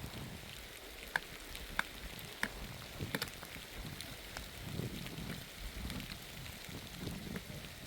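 Rain falling steadily, with single drops landing in sharp taps every so often.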